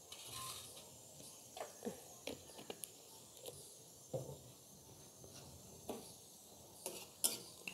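Faint, scattered light taps and clicks as dried red chillies and a utensil are handled at a steel karahi, about nine small knocks spread unevenly.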